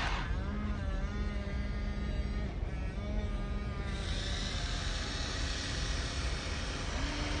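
Small electric motors of radio-controlled construction models (Huina excavator and dump truck) whirring, with a steady whine that shifts in pitch as they work.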